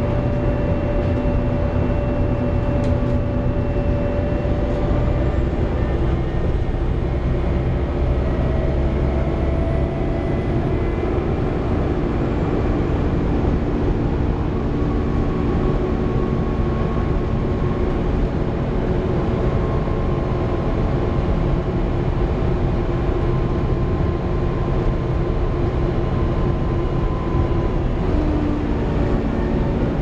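Volvo B7TL double-decker bus's six-cylinder diesel running on the road, heard from the upper deck: a steady low drone with several whining tones that hold and then shift in pitch every few seconds.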